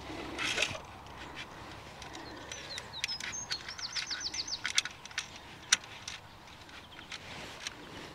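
A songbird singing, with a quick run of about eight repeated high whistled notes in the middle. Scattered sharp clicks sound throughout, the loudest about six seconds in.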